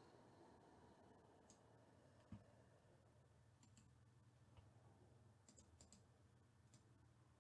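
Near silence with a few faint, short clicks scattered through, several in quick pairs, and one soft low thump a little over two seconds in.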